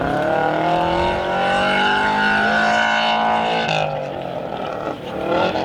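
Rally car engine at full throttle on a snow stage, its pitch climbing over the first second and then holding high. It cuts off sharply about three and a half seconds in, then climbs again near the end.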